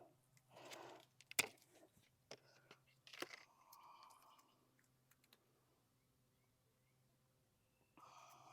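Mostly quiet, with a few scattered clicks and soft crunches in the first half, the loudest a sharp click about one and a half seconds in.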